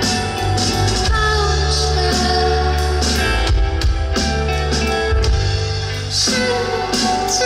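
Live band playing a song: singing over guitar, a heavy bass line and drums.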